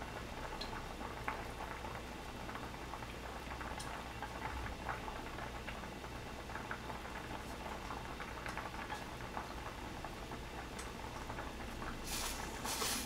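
Seafood soybean paste stew bubbling at a steady boil in a pot on a gas burner, with many small pops and ticks. Near the end come two short, louder rustling noises close together.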